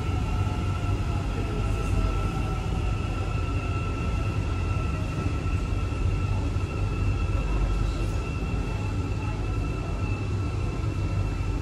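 Metro train running and slowing to a stop at a station, heard from inside the car: a steady low rumble with a high, even electric whine from the train's drive.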